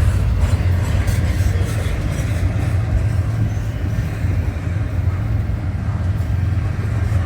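CN freight train rolling past, a steady low rumble of wheels on rail that eases slightly toward the end.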